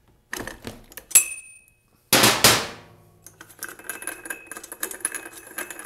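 Steel wrench clanking on a lawn mower's flywheel nut as the nut is loosened: a sharp ringing clink about a second in, then a louder clank a second later. Light metallic clinking and rattling follow as the nut is turned by hand.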